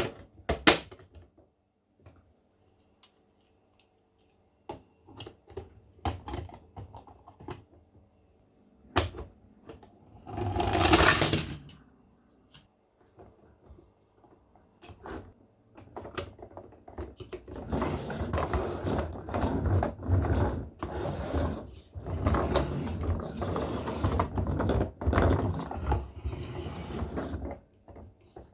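Plastic toy car transporter being handled and worked: scattered clicks and knocks, a short burst of louder noise about ten seconds in, then a long stretch of continuous plastic rattling and clattering with clicks until near the end.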